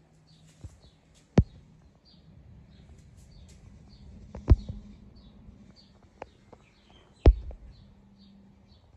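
Three sharp knocks, about a second and a half, four and a half and seven seconds in, the last the loudest, with a few fainter clicks between them. A bird chirps over and over in the background.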